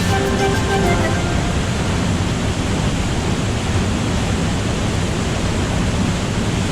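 Waterfall: a loud, steady rush of falling water, with background music ending about a second in.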